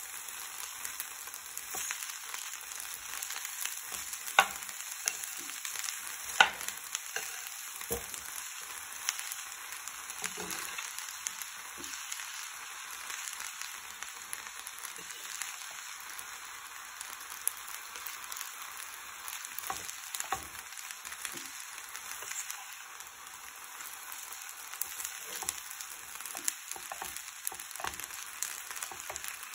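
Fusilli pasta sizzling in a frying pan while a metal spoon stirs it, scraping and knocking against the pan. Two sharp knocks stand out, about four and six seconds in.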